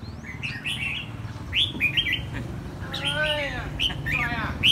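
Caged red-whiskered bulbul, a decoy bird, singing: short bright chirping phrases in quick succession, with a longer warbled phrase about three seconds in and again near the end. A steady low hum runs underneath.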